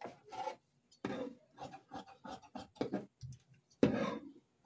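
Tailor's shears snipping through cloth on a cutting table, with the cloth shifting and rustling: a series of short, irregular snips, the loudest about four seconds in.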